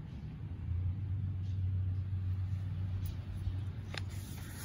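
A low, steady rumble that fades after about three seconds, and near the end a page of a hardcover picture book being turned with a short papery click.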